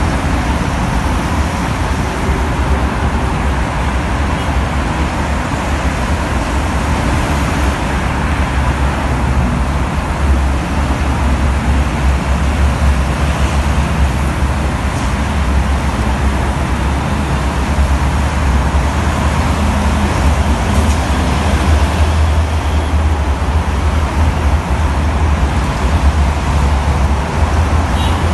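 Steady noise of heavy multi-lane highway traffic passing below: trucks, buses and cars running together as one continuous rumble with a deep low end.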